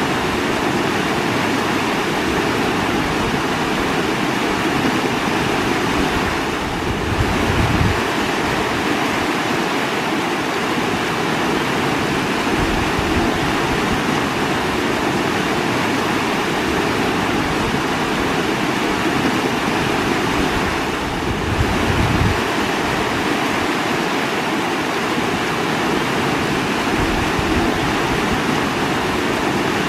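Running water rushing steadily, a dense even wash of noise. Twice the level dips briefly and then swells with a short low surge.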